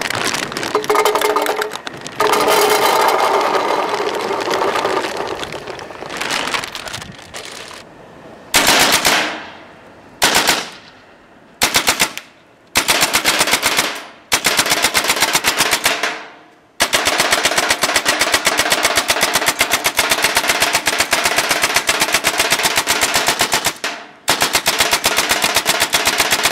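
RAP4 T68 M1919 paintball machine gun firing full auto: several short bursts of rapid, evenly spaced shots, then a long burst of about seven seconds and another that carries on to the end. Before the shooting, paintballs rattle as they are poured from a plastic bag into the gun's metal ammo box.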